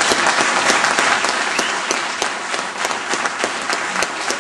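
Audience applauding, many hands clapping together, loudest at the start and easing slightly.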